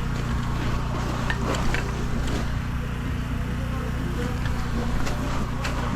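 An engine running steadily at a constant low hum, with scattered short clicks and scrapes over it.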